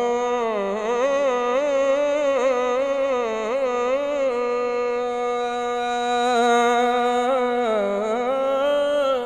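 A man's solo voice singing a naat unaccompanied: one long melodic phrase without words, held for about nine seconds, its pitch swaying in small ornaments and dipping near the end. It stops just before the end and trails off in an echo through the hall's microphone system.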